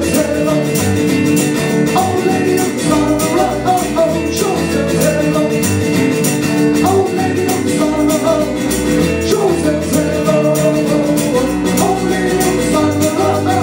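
Song with strummed guitar, a sung vocal line and a steady light percussive beat.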